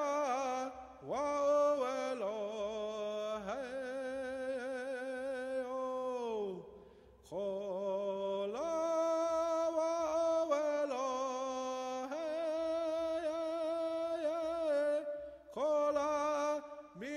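Wordless chant-like singing in long held notes. About six seconds in the notes slide down and fade, and the singing resumes about a second later.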